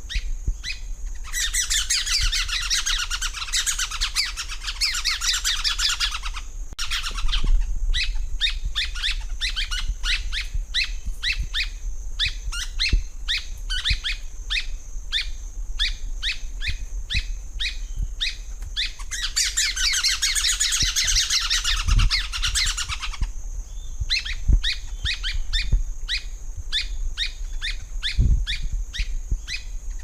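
Rusty-backed spinetail (Cranioleuca vulpina) singing: runs of sharp, evenly spaced notes about two or three a second, broken twice by a long dense chattering rattle.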